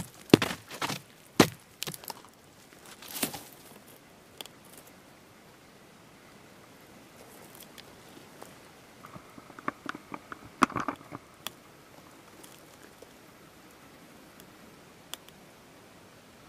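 Dry twigs and brush cracking and snapping close by, in a run of sharp snaps during the first few seconds and another cluster about ten seconds in, with quiet forest between.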